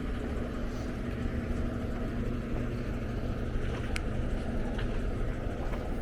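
Steady low rumble of engines running, with a constant hum throughout and one brief sharp tick about four seconds in.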